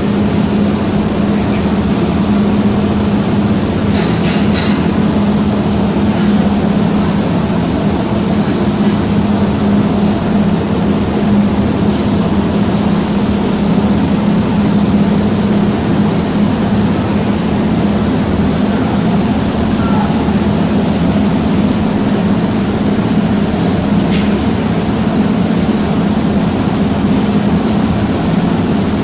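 MIG welding arc running continuously with .035 wire, a steady dense crackle over a low hum, with no breaks in the bead.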